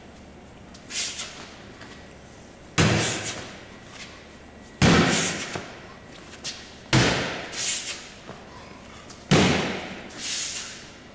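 Heavy strongman throw sandbags landing with a thud after being tossed over a bar, four times about two seconds apart, each echoing in a large metal warehouse.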